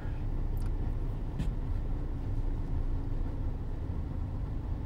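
Steady low rumble with a faint steady hum, the background noise of a parked car, with two faint clicks about half a second and a second and a half in.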